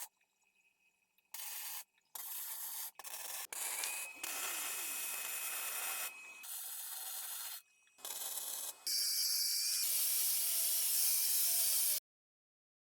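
Metal-fabrication noise in short, abruptly cut snippets: harsh hissing and rasping, with a steady high whine through the middle. It cuts off suddenly near the end into silence.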